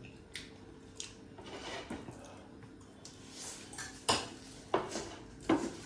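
Eating utensils clinking against dishes: a few scattered light clicks, then three sharper ones in the last two seconds.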